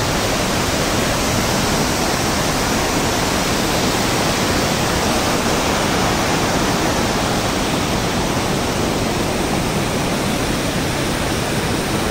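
Waterfall: white water pouring over rocks close by, a loud, steady rushing that does not change.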